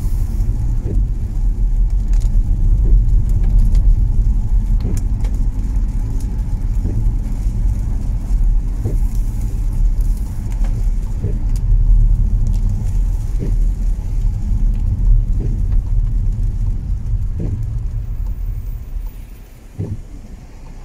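Low steady rumble of a car's engine and tyres on a wet road, heard inside the cabin while driving, easing off near the end as the car slows.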